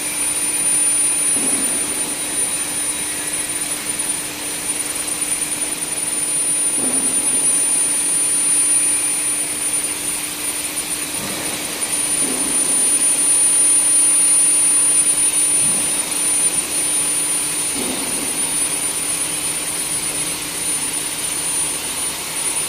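Sheet induction heating furnace running: a steady high-pitched whine and a lower hum over a constant rushing noise, with a few soft knocks every few seconds.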